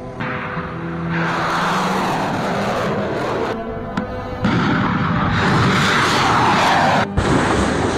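Music over the roar of missile launches: a loud rushing roar that swells, breaks off abruptly about three and a half seconds in, and returns louder until a sudden cut near the end.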